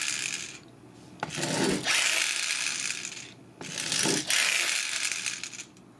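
Pull-back motor of a Dino Sparkers Strafe toy whirring as the toy is pulled back and released, which spins the spark mechanism inside it. The whirring comes in runs of about two seconds, two of them after a shorter one that is trailing off at the start.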